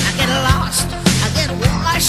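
Background music: a rock-style song with a steady drum beat, about two beats a second, under a wavering melody line.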